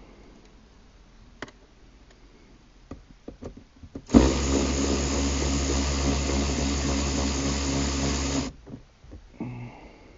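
A handheld power tool, fitted with an 8mm socket, runs steadily for about four seconds to back out the center console's bolts. It starts about four seconds in and cuts off suddenly, after a few light clicks and knocks of tools being handled.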